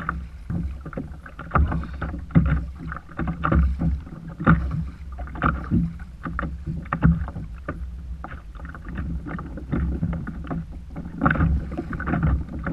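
Choppy sea slapping and knocking irregularly against a plastic kayak's hull, over a steady low rumble of water and wind.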